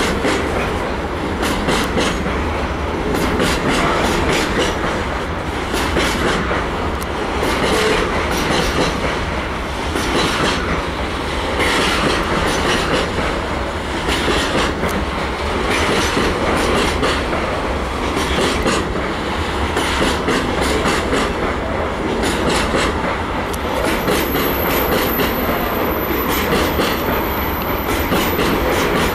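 A railway train passing close by, its wheels clicking in a steady clatter over rail joints. A thin, high whine joins near the end.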